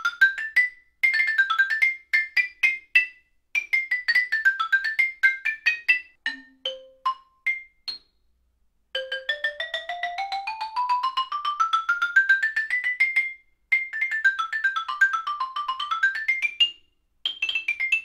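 Xylophone played with hard mallets: quick scale and arpeggio runs up and down, then a few single notes each an octave higher than the last. After about a second's pause, a second pair of mallets (Dragonfly School Bell/Xylo after the Innovative Percussion OS2) plays a long rising scale and more runs up and down.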